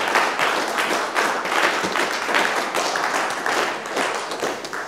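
Audience applauding: many hands clapping in a dense, steady patter that tapers slightly near the end.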